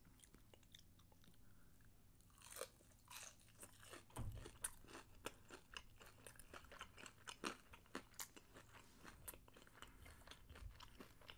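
Close-miked crunching and chewing of batter-fried shrimp. Quiet for about the first two seconds, then irregular crisp crunches several times a second.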